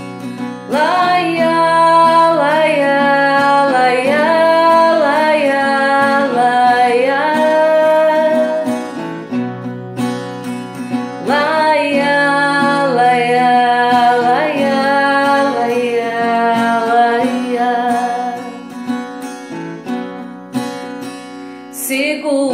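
A woman singing long, sliding notes over a strummed acoustic guitar, in two phrases with a short break about ten seconds in; near the end the voice drops back and the guitar carries on more quietly.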